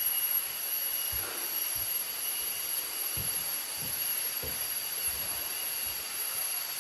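Waterfall water running with a steady hiss, under steady high-pitched insect calls; a few soft low thumps.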